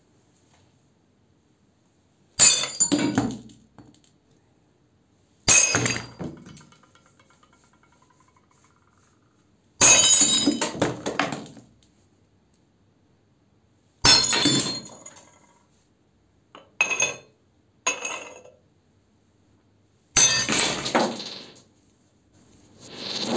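White ceramic cups breaking under hammer blows on a marble slab: about six sharp crashes a few seconds apart, each trailing into a second or so of shards clattering, with two short clinks between the fourth and fifth.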